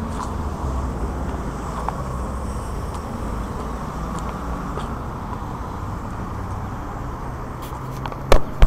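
Steady road traffic on a busy city street, a low rumble and hiss of passing cars. Two loud, sharp knocks near the end.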